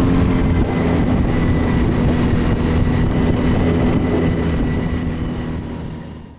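A boat's outboard motor running steadily, a low rumble with wind and water noise, fading out over the last second or so.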